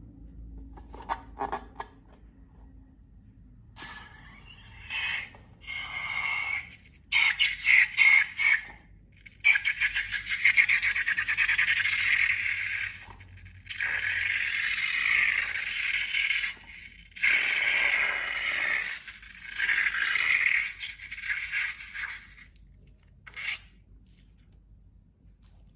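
Scraping with a fine crackle, in stretches of one to three seconds broken by short pauses, starting a few seconds in and stopping shortly before the end.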